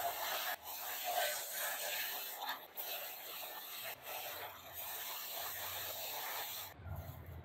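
A carved wooden clock face spinning on a motor-driven spindle, with a steady hissing rub and a few very short breaks. The rubbing stops near the end, leaving a low hum.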